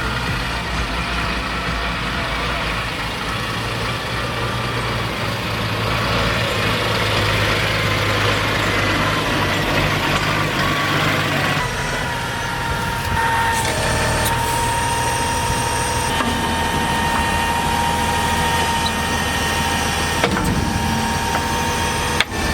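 Diesel engine of farm harvest machinery running steadily. The sound changes about halfway through, after which a thin steady whine rides above the engine.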